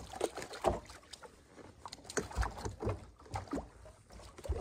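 Irregular splashes, knocks and rustles at the side of a kayak as a hooked largemouth bass is brought alongside and grabbed by hand, with a couple of duller thumps against the hull.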